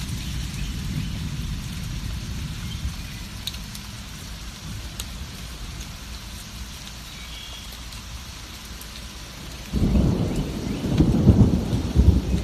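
Steady rain on a surface with low rolling thunder underneath. About ten seconds in, a louder peal of thunder breaks in and rumbles on.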